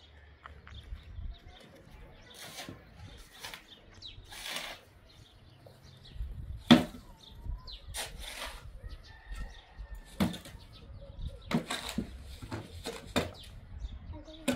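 Irregular short knocks and rustling strokes, the loudest about seven seconds in, with a few faint bird chirps between them.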